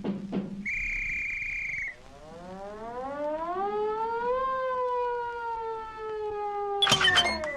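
Cartoon sound effects: a short steady high beep, then a long siren-like wail that rises slowly and then sags gently downward, cut off by a loud clattering crash near the end.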